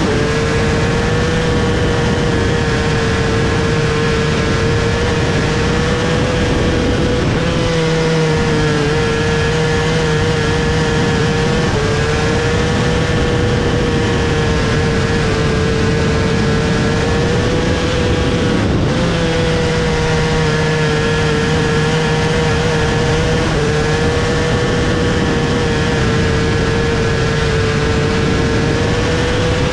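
Micro sprint car engine at full race speed, heard onboard, its high note sagging and then jumping back up in a repeating cycle about every 11 to 12 seconds as it works around the oval, over heavy wind and track noise.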